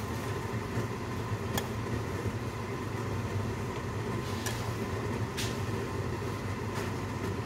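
Water at a rolling boil in a cooking pot, with greens being blanched in it: a steady bubbling, with a few sharp clicks of metal tongs against the pot.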